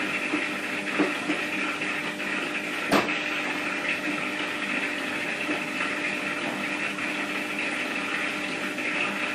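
Steady mechanical hum through the whole stretch, with one sharp click about three seconds in as a cat's paw strikes a metal lever door handle.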